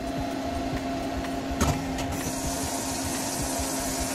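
CNC lathe running and cutting a workpiece: a steady machine hum with the hiss of the cut. A single sharp knock comes about one and a half seconds in, and a brighter, higher hiss sets in about two seconds in and holds.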